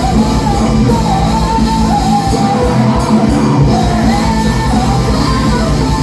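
Metal band playing live: drums with a fast kick pulse, distorted guitars and bass, and a female voice singing a high, wavering melody over them. The kick drum drops out for about a second and a half midway, then comes back.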